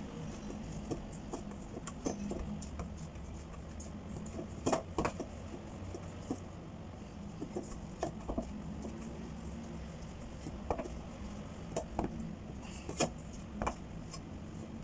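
Hands kneading a stiff flour dough for empanada wrappers in a stainless steel bowl: soft pressing and rubbing, with scattered sharp clicks and knocks against the metal bowl every second or two, over a low steady hum.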